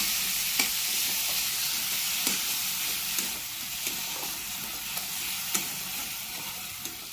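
Onion-tomato masala sizzling in a hot metal kadai while a metal spatula stirs it, with short clicks and scrapes of the spatula against the pan every second or so.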